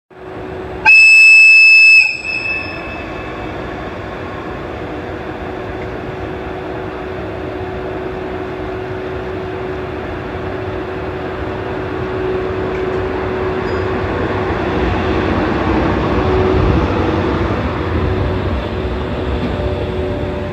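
EF81 electric locomotive sounds its whistle once: a single loud, high-pitched blast about a second long. It then pulls away running light with a steady hum, growing louder as it passes.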